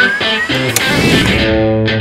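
Background music with guitar, playing repeated chords, with a tone gliding upward over the first second.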